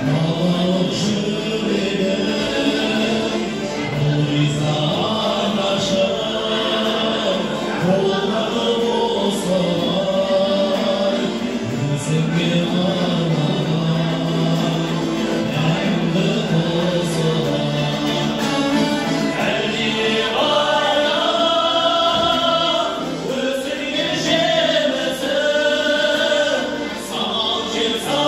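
A group of men singing together live, accompanied by long-necked string lutes.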